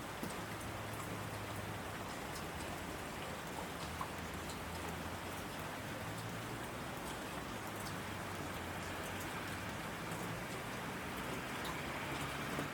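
Heavy rain falling steadily on asphalt: a dense, even hiss with scattered sharper ticks of single drops, over a low steady hum.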